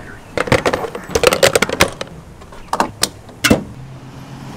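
A bunch of keys jangling and clinking in a hand, with a couple of sharper knocks about three seconds in.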